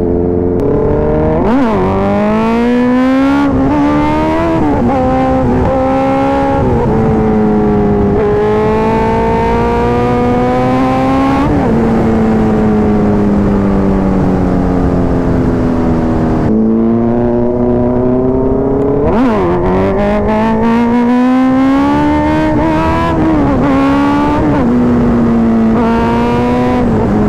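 Kawasaki Z900's inline-four engine pulling on the road. Its pitch climbs steadily and drops sharply at each gear change (about five times), with a slow fall for a few seconds in the middle as the bike slows. There is a steady wind rush down low underneath.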